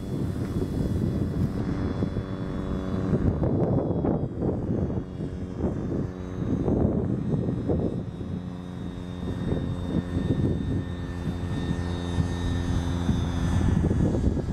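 Radio-controlled model biplane's engine and propeller running in flight, its pitch holding steady through the second half.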